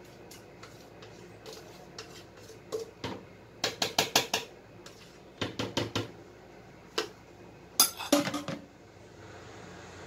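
A spoon tapping and scraping against a container while margarine is spooned into a blender jar: several clusters of quick taps, the sharpest a little under eight seconds in.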